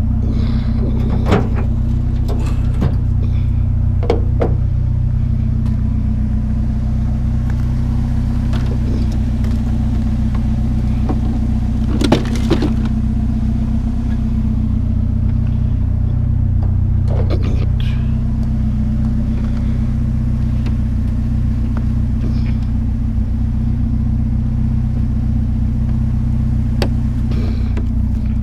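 Vehicle engine idling steadily, with a few short knocks and clanks over it.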